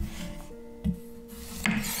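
Chef's knife slicing through a fresh zucchini and knocking on a wooden cutting board, twice: once a little under a second in and again near the end. Soft background music with held notes plays underneath.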